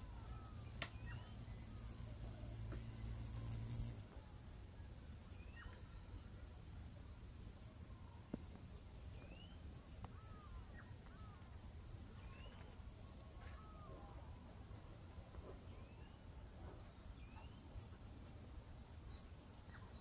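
Faint cricket chorus: steady high-pitched trilling, with short rising chirps every couple of seconds. A low hum runs under it for the first four seconds.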